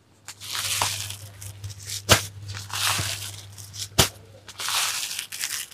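Rustling of folded silk sarees and their wrapping as three of them are laid down one after another, with two sharp taps about two and four seconds in. A low steady hum runs underneath.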